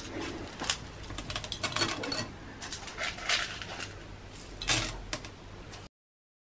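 Chocolate chips being sprinkled by hand into a glass mixing bowl of pancake batter: a loose patter of small light clicks, with a sharper knock a little before five seconds in. The sound cuts off suddenly about six seconds in.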